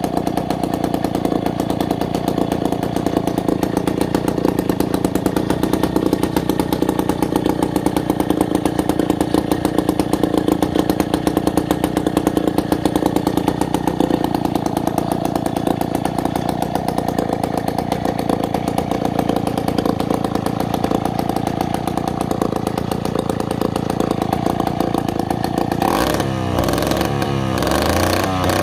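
Hoffco two-stroke chainsaw engine running steadily, then near the end revved up and down in quick blips.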